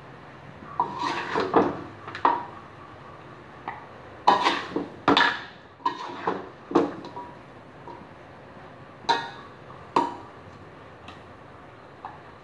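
Metal spatula and spoon clanking and scraping against a steel wok while stir-frying, in irregular knocks that ring briefly, the loudest about four and five seconds in.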